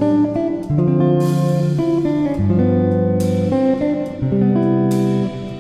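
Background music: a guitar instrumental whose chords change about once a second.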